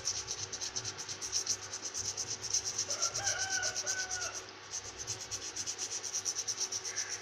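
Toothbrush bristles scrubbing a gas stove burner in fast back-and-forth strokes, a steady scratchy rubbing that loosens grime softened by an overnight soak in vinegar and baking soda.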